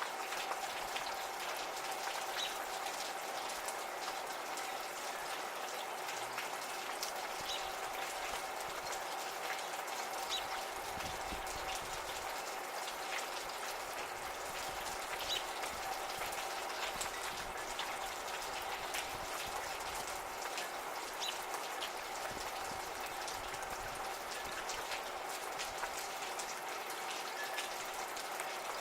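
Gentle, steady rain, with scattered drops ticking and dripping throughout and a brief low rumble about eleven seconds in.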